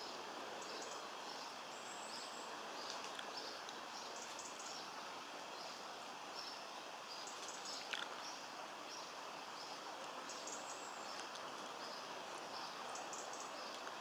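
Outdoor ambience: a steady hiss under many short, high chirps from small birds, repeating every second or so, with one quick falling call about eight seconds in.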